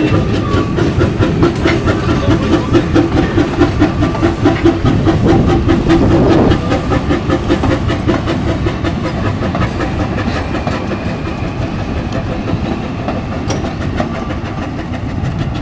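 Narrow-gauge steam locomotive passing close by, its exhaust beating rhythmically. After about six seconds the rhythm gives way to the steady rumble and clicking of wheels as a rake of wagons and coaches rolls past on the rails.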